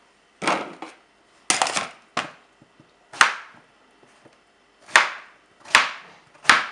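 Kitchen knife chopping through chunks of peeled long melon (bottle gourd) onto a plastic cutting board: a series of separate knife strokes at uneven spacing, about a second apart.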